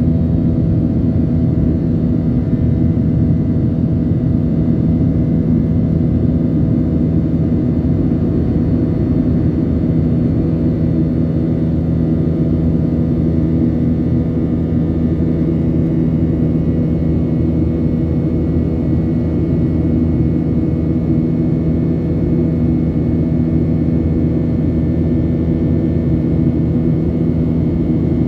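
Steady drone of a jet airliner's engines heard inside the passenger cabin during the climb after takeoff, a low rumble with a few steady hum tones over it.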